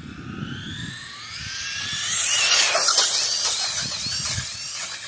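Electric motor of a radio-controlled truck whining as it accelerates hard on a speed run, the high-pitched whine climbing for about two seconds, then wavering near top speed before fading away near the end, with tyre rumble underneath.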